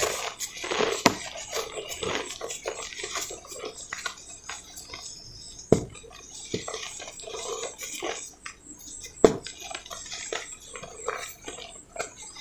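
Hands crushing and crumbling lumps of dry cement in loose cement powder: a crumbly, crackling texture of small crunches, with three sharper snaps about one, six and nine seconds in.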